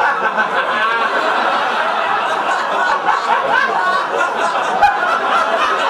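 Live theatre audience laughing continuously.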